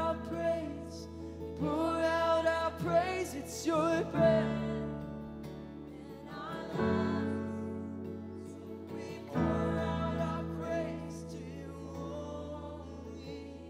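Live church worship band singing a slow chorus over held guitar and keyboard chords that change every few seconds, getting quieter toward the end.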